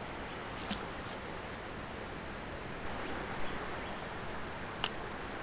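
Running stream water makes a steady rushing hiss. Two short sharp clicks come through it, one near the start and a louder one near the end.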